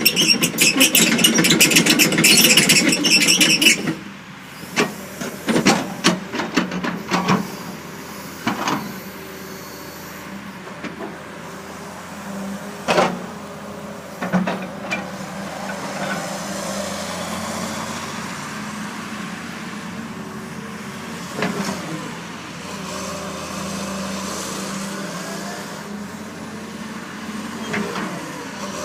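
A John Deere 200D LC crawler excavator running. Its diesel engine is loud and rattling for about the first four seconds, then settles to a steadier, quieter drone, with scattered metallic clanks and knocks and some rising and falling whine.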